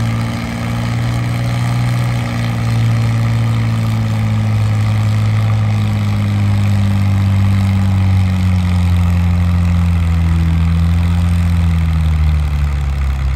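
Farm stock diesel tractor engine running hard under load, its pitch sinking gradually from about a third of the way in as the engine lugs down, typical of a tractor pulling a weighted sled.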